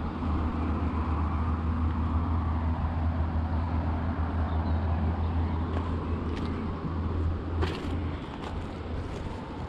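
Steady low rumble of distant road traffic, with a few light clicks in the second half.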